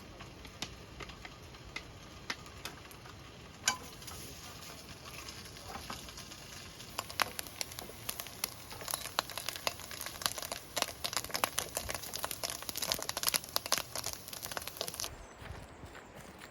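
Food frying in a pan, a hiss with many small crackling pops of spitting fat; the crackle picks up about a third of the way in, grows dense, then cuts off sharply near the end.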